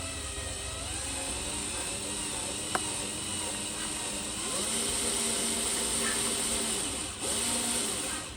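Whine of a radio-controlled construction machine's electric motor and gears, its pitch gliding up and down as it works, then stepping up about halfway through and holding steady, with a brief dip near the end. A single sharp click a little under three seconds in.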